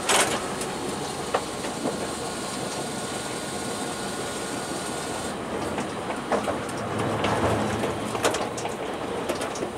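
Tokyu Setagaya Line tram running along its track, heard from inside the car: steady running noise with sharp clicks of the wheels over rail joints, a loud one right at the start and several more in the second half. A high hiss drops away about halfway through.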